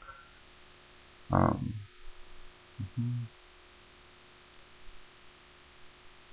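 Steady electrical mains hum in the recording, broken by a short loud noise about a second and a half in and a brief low pitched sound near three seconds.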